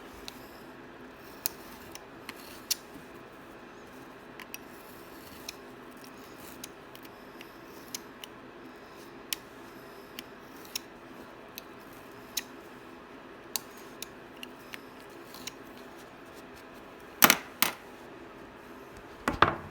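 Knife trimming a lawnmower air filter element to size: scattered short, sharp cutting clicks about once a second, with louder knocks and clatter twice near the end.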